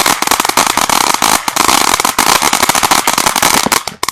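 Consumer fireworks going off in a fast, dense run of crackling pops that stops abruptly near the end.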